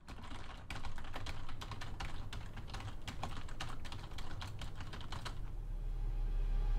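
Typing on a computer keyboard: quick, irregular keystrokes that stop about five seconds in, over a low rumble that swells into a steady low drone near the end.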